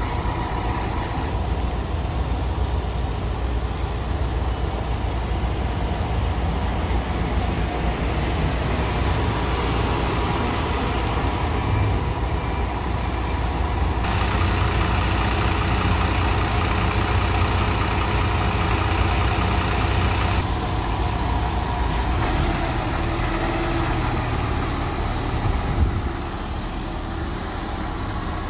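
Volvo B7R bus's six-cylinder diesel engine running close by, then pulling away. A brief sharp noise comes near the end.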